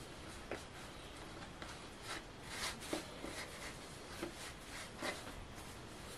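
Faint rubbing and soft taps of hands rolling and pressing bread dough on a floured wooden board, with a few light knocks and a short burst of brushing about two seconds in.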